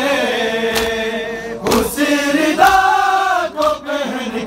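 A group of men chanting a Urdu noha in unison, holding two long drawn-out notes of the refrain. A few sharp slaps of hands striking bare chests (matam) cut through the singing.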